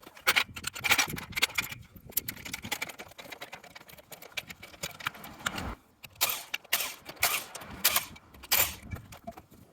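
Irregular sharp clicks and clanks of metal workshop equipment being handled, coming in quick clusters.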